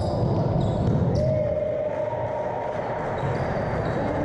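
Basketball game on a wooden court in a large sports hall: the ball bouncing on the floor amid players' movement, with short high sneaker squeaks in the first second or so.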